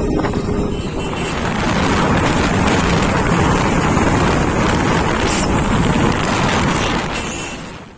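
Wind rushing over the microphone of a moving motorcycle, with a steady low engine rumble underneath, fading out near the end.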